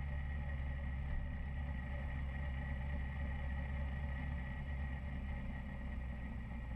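Motorcycle engine running steadily at low road speed, a constant low hum with no change in pitch.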